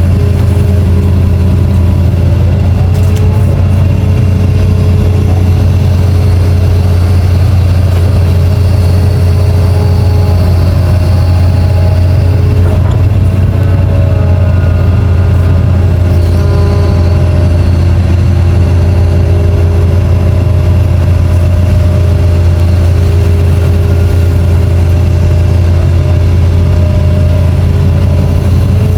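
Excavator's diesel engine running steadily under load, a constant low hum with higher whining tones that come and go and shift in pitch as the machine works.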